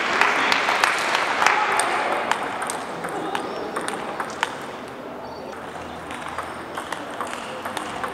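Table tennis ball clicking off the bats and the table in a rally, sharp, irregularly spaced ticks.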